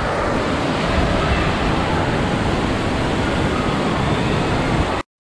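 Steady rush of spraying and falling water from an indoor water park's play structure, cutting off suddenly near the end.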